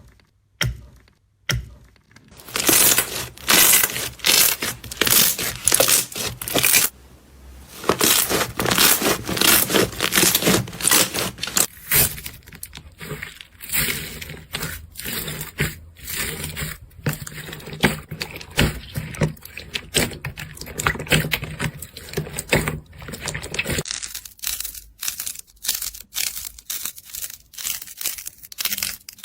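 Slime being pressed and squished by hand, making dense crackling and popping with many sharp clicks. There is a short lull about seven seconds in, and the clicking turns sparser and quieter near the end.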